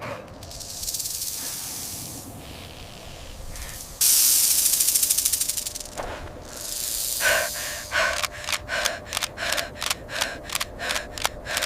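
A high hissing noise that jumps louder for about two seconds near the middle, then fast, even panting at about three breaths a second, typical of a dog panting in heat.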